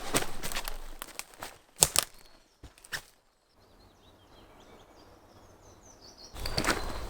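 Footsteps on forest ground, irregular crunching steps for the first few seconds. A small bird chirps faintly in a quieter stretch, then the steps and rustling start again near the end.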